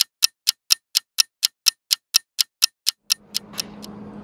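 Clock-ticking sound effect: sharp, even ticks about four a second, which fade out near the end as a steady low hum of the shop comes in.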